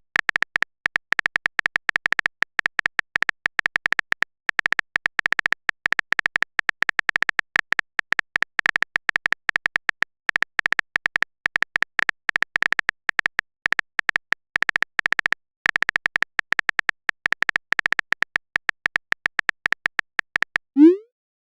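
Phone-keyboard typing sound effect: a long run of rapid, irregular key clicks, several a second. It stops shortly before the end and is followed by one short rising blip.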